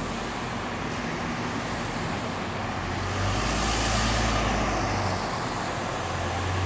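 Steady road traffic noise, with a vehicle passing by that swells and fades about halfway through.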